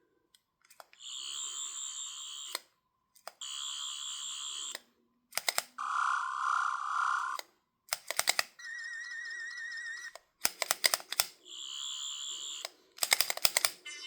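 Chrome toy replica of the Third Doctor's sonic screwdriver playing its electronic buzzing sound effects through its small speaker. There are about six bursts of a second or so each, with sharp clicks between them: most are high and steady, one is lower, and one warbles.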